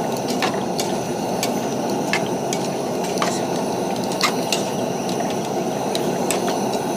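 Food frying in butter in pans on a camp stove: a steady rushing sizzle with scattered sharp pops and crackles.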